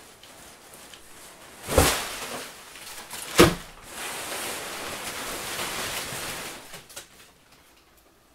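Two sharp thumps on a cardboard box as it is pushed open from inside, then about three seconds of crumpled newspaper packing paper rustling.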